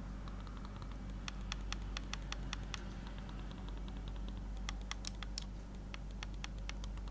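Nubwo NMB-010 silent wireless mouse buttons pressed repeatedly close to a microphone: faint, muted clicks, a few a second at an uneven pace. The silent switches damp the usual click to a soft tick, over a low steady hum.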